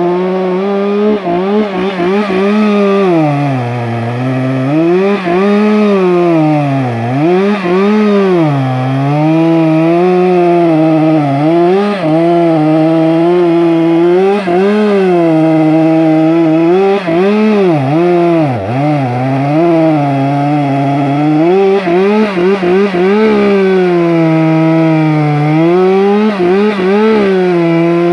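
Stihl MS 462 two-stroke chainsaw running at high revs while cutting through a post. The engine pitch sags again and again as the chain bites into the cut, then climbs back.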